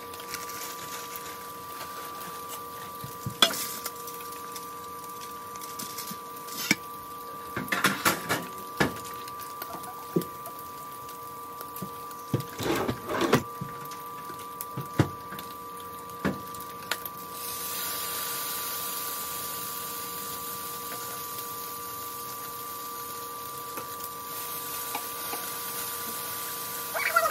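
Kitchen cookware and utensils clattering and knocking in the first half. From about 17 seconds in, a steady sizzle of food frying in a hot pan on the stovetop, with a faint steady hum underneath.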